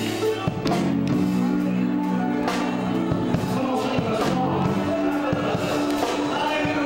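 Live gospel music: piano accompanying singing voices, with held chords throughout.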